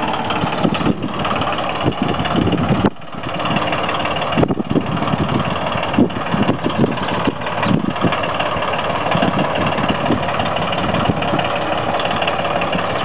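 Small Yanmar tractor's diesel engine running steadily as the tractor is driven around.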